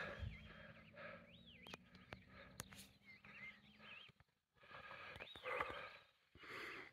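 Faint birdsong: a few short whistled phrases that glide up and down, spaced a second or two apart.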